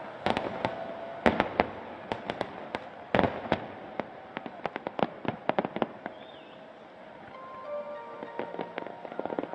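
Fireworks shells bursting overhead: rapid clusters of sharp bangs that thin out past the middle and pick up again near the end.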